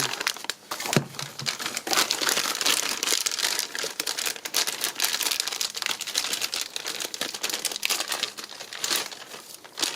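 Packaging crinkling and rustling as a new stabilizer link bar is handled and unwrapped, with a sharp click about a second in.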